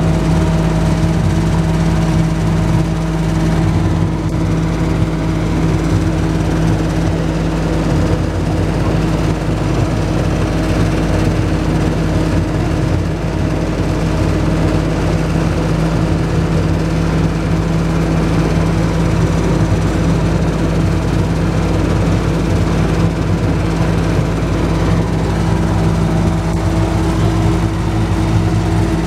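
Small sightseeing train's engine running at a steady pace, a constant droning hum over a low rumble, heard from inside its open-windowed passenger car.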